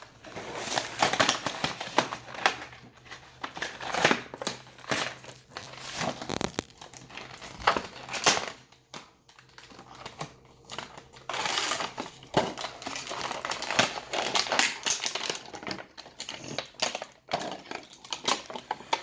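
Toy packaging being torn open and handled, with irregular crinkling and crackling of the wrapper and scattered sharp clicks, easing off briefly about halfway through.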